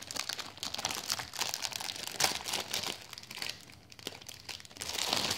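Thin clear plastic bag crinkling and rustling as hands handle it, in irregular crackles that ease off a little past the middle and pick up again near the end.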